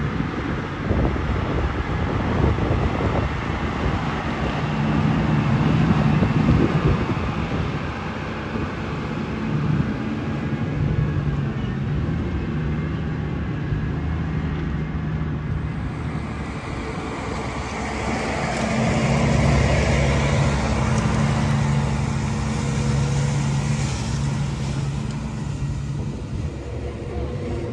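Claas Axion 930's six-cylinder diesel engine running steadily under load as the tractor pulls a reversible plough through stubble. It grows louder twice, around six and twenty seconds in, as the tractor passes close.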